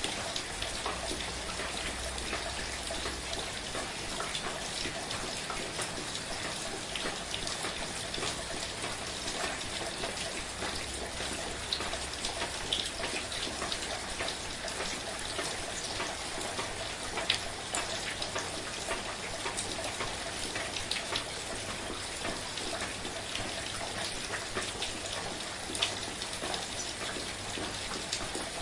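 Soft, steady rain falling, with the patter of individual drops throughout and a few louder single drips standing out.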